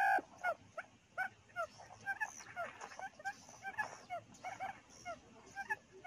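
Quails calling: many short, hooked call notes, several a second and overlapping, with one louder held note right at the start.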